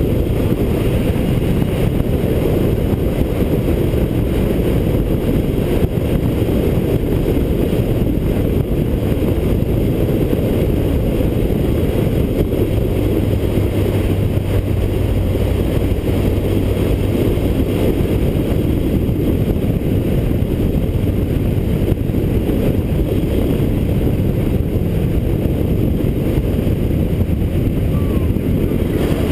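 Motorcycle engine running steadily on the move, mixed with wind noise on the onboard microphone.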